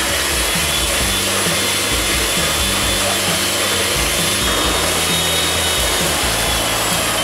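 Electric hand mixer running steadily at a constant speed, beating eggs with sweetened condensed milk, with a faint high whine from its motor. Background music plays underneath.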